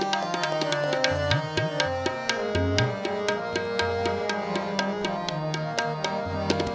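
Tabla playing a steady rhythm of about five strokes a second, some of the bass drum's strokes bending in pitch, over held harmonium notes: an instrumental interlude between the sung lines of a Sikh kirtan.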